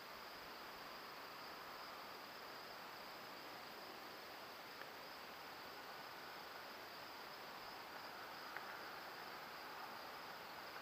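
Faint, steady chirring of crickets and other insects, with a couple of tiny clicks.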